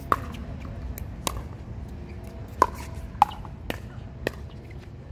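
Pickleball paddles hitting a plastic pickleball back and forth in a rally: about six sharp, hollow pops at uneven intervals, over a steady low background rumble.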